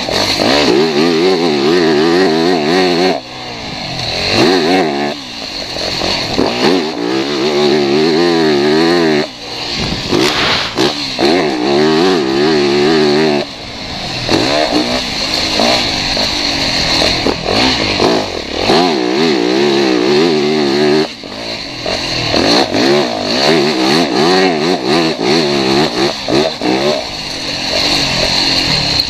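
Motocross dirt bike engine revving hard on an off-road track, its pitch rising and falling with the throttle. It drops away briefly several times, about every few seconds, as the throttle is rolled off.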